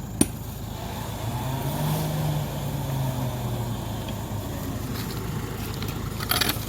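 A motor or engine running steadily, rising in pitch and level for a couple of seconds and then easing back. A sharp knock comes just after the start, and a clatter near the end.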